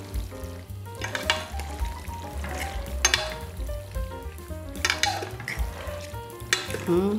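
Two forks stirring and lifting fettuccine through a creamy sauce in a stainless steel pot: wet squelching and light scraping in about four strokes, roughly two seconds apart.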